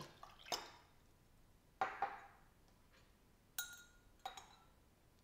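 Glass laboratory beakers and a glass stirring rod knocking and clinking on the bench: a few separate knocks, the clearest about two seconds in, then two short ringing glass clinks a little under a second apart near the end.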